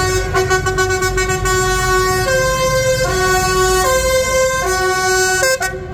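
Two-tone horn: a steady note for about two seconds, then alternating between a low and a higher note roughly every 0.8 seconds, like a hi-lo siren, cutting off abruptly near the end. Tractor engines run steadily underneath.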